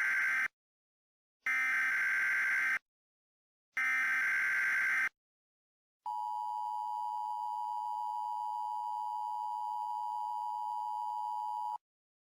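Emergency Alert System header: three short bursts of digital SAME data tones, the first already under way. Then comes the steady two-tone EAS attention signal, held for about six seconds and cutting off suddenly, which announces that an emergency message follows.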